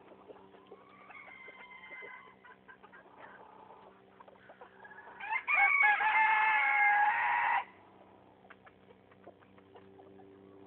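Chickens clucking softly, then a rooster crowing once about five seconds in: a loud call of a few short rising notes and a long held note, about two and a half seconds, that stops abruptly.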